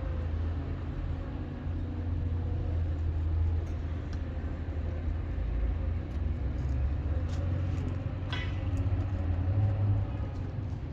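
Steady low rumble of a running vehicle, with a single sharp click about eight seconds in.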